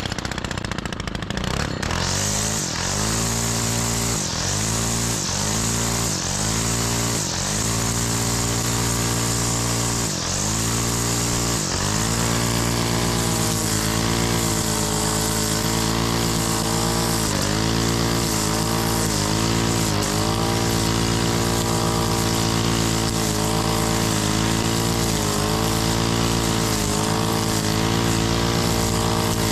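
Gas string trimmer (weed eater) running at high speed while cutting grass, its engine note dipping and coming back up every second or so as the throttle is eased and squeezed again, then holding steadier with only occasional dips.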